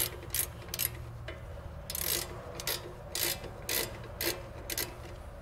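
Ratcheting wrench clicking in short bursts, about every half second, as the 19 mm castellated nut on a front ball joint stud is backed off.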